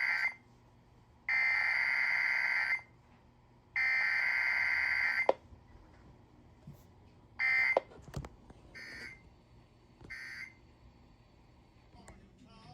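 Emergency Alert System digital data tones: three identical bursts of harsh warbling buzz, each about a second and a half long with a second's gap between them, sent after the test announcement to end the message. A few shorter, fainter blips follow.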